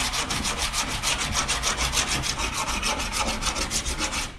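Flat metal file rasping across a bare steel car bonnet in quick, even strokes, about six a second. The file scuffs the panel to show up the low spots that still need pulling during dent repair.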